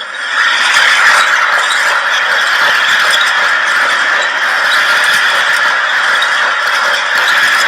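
Film sound-effects track of machinery: a steady, dense mechanical squealing and grinding clatter.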